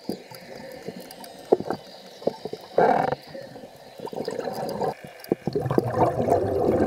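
Muffled underwater sound heard through a submerged camera: scattered sharp clicks and knocks, a short burst of water noise about three seconds in, and a steadier wash of water noise building over the last second or so.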